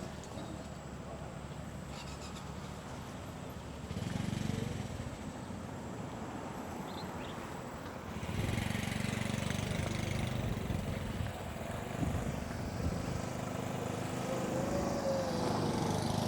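A motor vehicle's engine running, a steady low rumble that gets louder about four seconds in and again from about eight seconds on.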